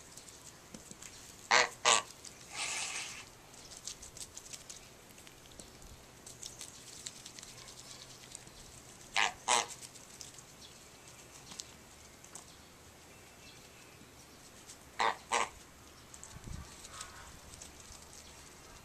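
Goose honking in three pairs of short, loud honks, spaced about six to seven seconds apart. A short harsh, breathy rasp follows the first pair.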